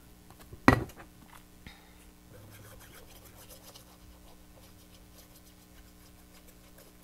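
Hands handling and rubbing paper pieces onto a paper box on a craft table, with one sharp knock about a second in.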